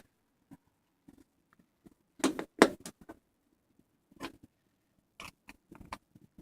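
Watermelon fruit slime being squished and poked by hand, giving scattered sharp pops and clicks, the loudest pair a little over two seconds in.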